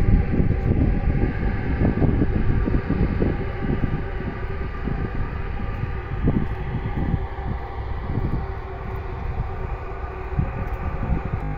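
Wind buffeting the phone's microphone: an irregular low rumble that rises and falls in gusts, a little weaker in the second half, over a faint steady hum.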